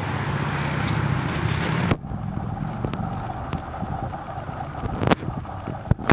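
Wind rumbling on the microphone and handling noise from a handheld camera carried outdoors. The rumble cuts off abruptly about two seconds in, leaving a quieter hiss with light clicks and two sharp knocks near the end.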